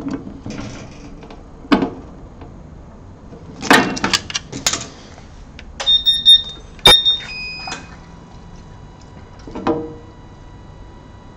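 A metal wrench clinking and knocking against the brass fitting of a water flow switch as a leaking hose joint is retightened. A few sharp, ringing metallic clinks come about six to seven seconds in.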